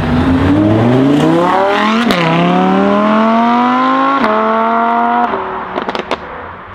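Lamborghini Huracán's V10 accelerating hard, the engine note climbing through the gears with two quick upshifts where the pitch drops, then the driver lifts off and the sound falls away with a few sharp exhaust pops near the end.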